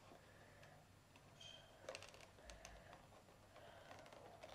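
Near silence, with faint scattered clicks and light rustles of a trading card and its plastic packaging being handled.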